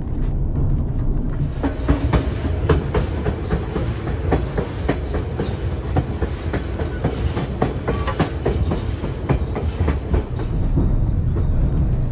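White Pass & Yukon Route narrow-gauge passenger train running along the track: a steady low rumble with irregular clicks and clacks of the wheels on the rails, thinning out near the end.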